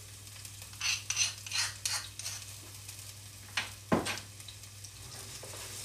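Crushed ginger and garlic sizzling in hot sesame oil in a clay cooking pot, with a few light clicks as it is scraped in and a sharper knock about four seconds in.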